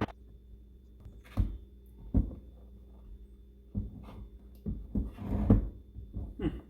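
A series of irregular knocks and clunks, about half a dozen, with a busier cluster about five seconds in, over a faint steady hum.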